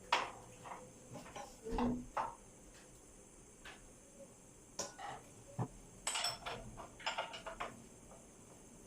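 Irregular metallic clinks and knocks of hand tools and parts on a motorcycle's front end as the speedometer cable and brake caliper are undone, with a quick cluster of clinks about six to seven and a half seconds in.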